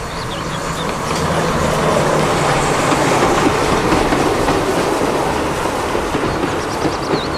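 Train running, its wheels clattering with a steady clickety-clack.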